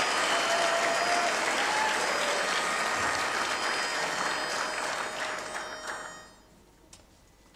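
Audience applauding in a hall. The clapping dies away about six seconds in.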